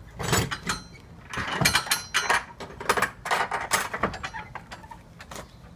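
Wooden yard gate with a metal frame being worked by hand: its metal latch and bars clank and scrape in a string of short bursts, dying away about four seconds in, with one more knock near the end.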